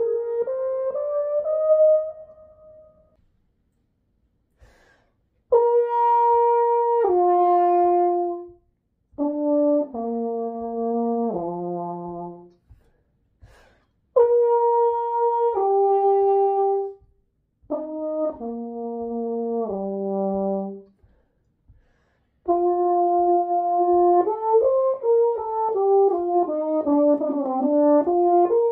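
Solo French horn. A rising line ends on a held note about three seconds in. After a pause come short phrases of two to four held notes, each stepping downward, separated by pauses, and then a longer, busier phrase near the end.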